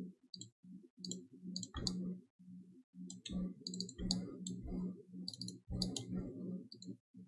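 Computer mouse clicking in quick, irregular runs of short clicks while edges are picked one after another.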